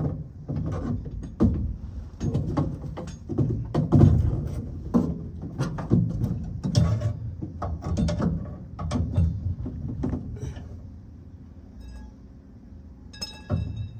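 Irregular metallic clanks and knocks of a pickup's factory spare tire hoist being handled and tried into place under the truck bed, easing off after about ten seconds. Near the end a few steady ringing tones come in.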